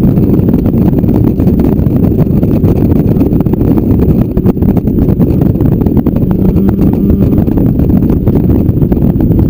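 Motorcycle riding at road speed: the engine's steady drone mixed with heavy wind rumble on the microphone, loud and rough.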